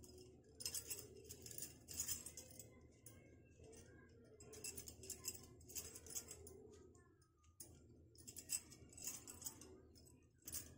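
Faint, soft handling sounds of wheat-flour dough being pinched off a large lump, rolled into small balls by hand and set down on a marble board, coming every second or so.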